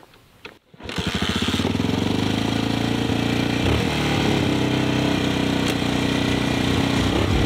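A 1981 Honda XL500S's single-cylinder four-stroke engine catching about a second in and then idling steadily, with a slight change in its beat about halfway through.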